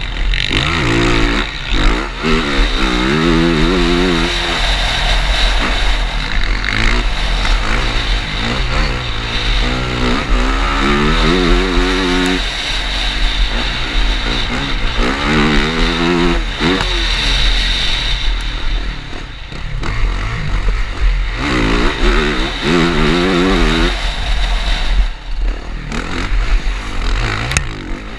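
Yamaha motocross bike's engine at race pace, revving up in rising sweeps again and again as the rider accelerates and shifts, falling away between runs. Heavy wind rush on the helmet-mounted camera's microphone is underneath throughout.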